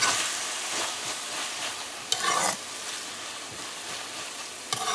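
A metal spoon stirring and scraping stewed cabbage around a metal pot, over a steady sizzle from the cabbage cooking down nearly dry. Twice, about two seconds in and near the end, the spoon sounds briefly louder against the pot.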